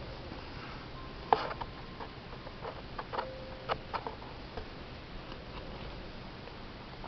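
Hand cross-stitching: small clicks and taps of the needle and floss working through the fabric, with one sharper click about a second in and a cluster of lighter ones shortly after, over a steady background hiss.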